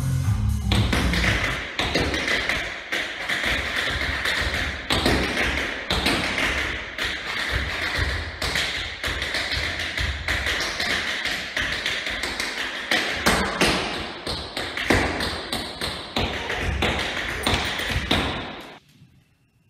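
Tap dancing: a fast, unbroken run of tap-shoe steps and heel drops with no music. It stops suddenly near the end.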